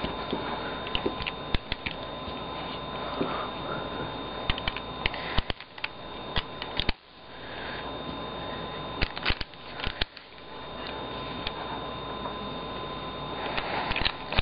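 Plastic pieces of a 3x3 puzzle cube clicking and tapping as they are handled and fitted together, in irregular small clicks, over a steady high electrical whine and background hiss.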